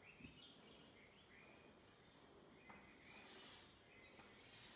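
Near silence: faint short scratches of chalk on a blackboard as hatching lines are drawn, over a faint steady high-pitched hum.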